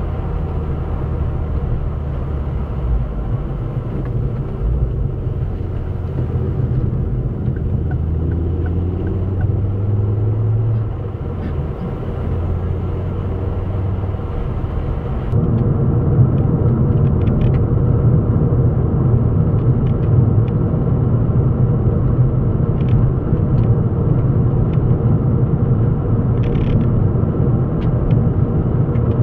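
Car driving, heard inside the cabin: steady engine and road rumble, with the engine note rising and falling a little in the first half. About halfway through the sound jumps to a louder, rougher road rumble that then holds steady.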